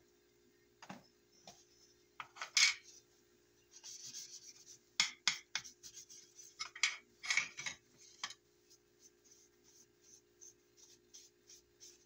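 Paper towel rubbing and rustling on a freshly stained revolver grip panel as it is wiped down, in a string of short scrapes, with a few sharp clicks and knocks.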